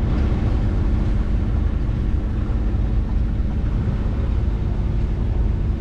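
A sailboat's newly installed engine running steadily as the boat motors along, a low, even drone with no singing noise from it.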